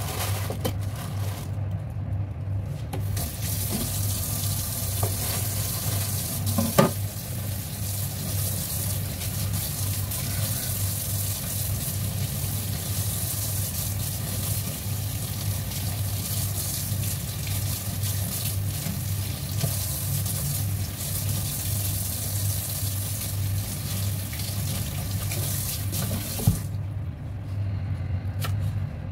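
Kitchen tap running into a stainless steel sink as spring onions are rinsed under it, over a steady low hum, with a single knock about seven seconds in. The water stops near the end, followed by a few light knife taps on a chopping board.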